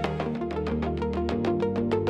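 Electronic music: quick even ticks of a drum machine, about eight a second, over held synth chords and a steady bass line that steps to a new note about a second in.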